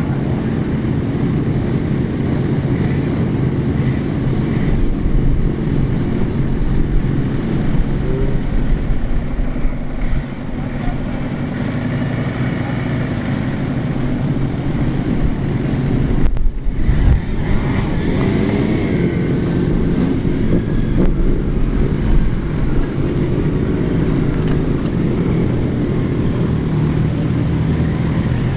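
Old motorcycle engines running as a stream of classic bikes rides past close by, the sound rising and falling as machines pass and rev.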